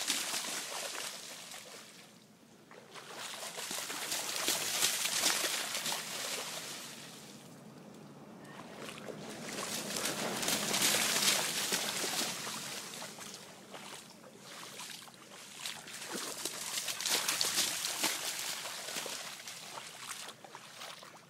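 A dog running and splashing through shallow standing water, the splashing swelling and dying away in several rushes with short lulls between.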